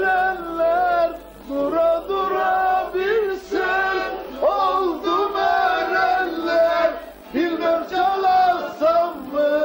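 A group of voices singing a folk song together in short phrases, with a bağlama (long-necked Turkish saz) being played along.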